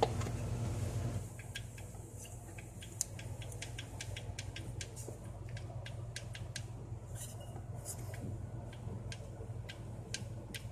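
Scattered light clicks and taps of ignition parts being handled and fitted as a rotor button and distributor cap go back onto the distributor, over a steady low hum.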